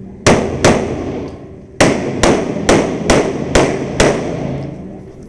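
Eight 9mm pistol shots from a ported Smith & Wesson Performance Center M&P 9, echoing in an indoor range: a quick pair, then after about a second a steady string of six shots roughly half a second apart.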